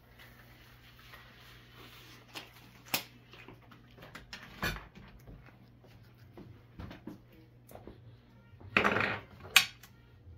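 Kitchen handling sounds: a few sharp clicks and knocks of utensils on the counter, then a short scraping rustle and a last sharp click near the end.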